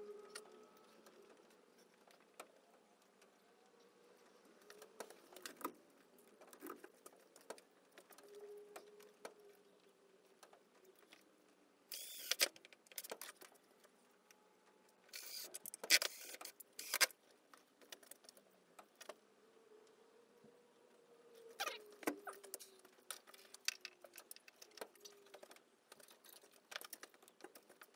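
A cordless drill run in a few short bursts, the longest about two seconds, amid the clatter of tools and parts being handled.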